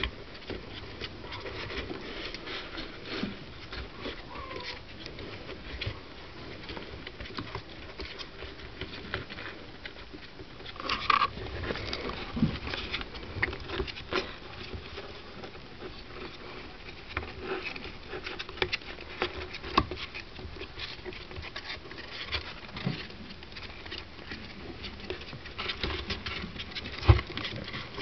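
Baby Gambian pouched rats scrabbling about on the cardboard floor of a box: a steady run of small scratches, taps and rustles, with one sharper knock near the end.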